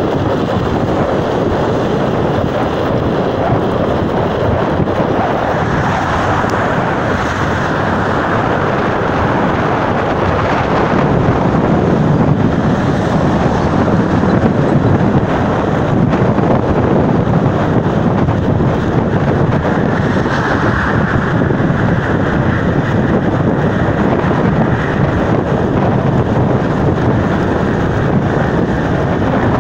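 Steady wind rush buffeting the microphone of a bicycle coasting at speed on asphalt without pedalling, growing a little louder about ten seconds in.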